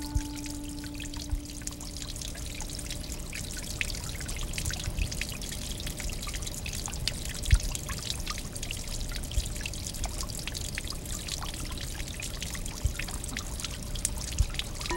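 Water from a stone water sculpture trickling and pouring steadily down the stone's face, with scattered drips and a few louder splashes. A low ringing tone dies away in the first few seconds.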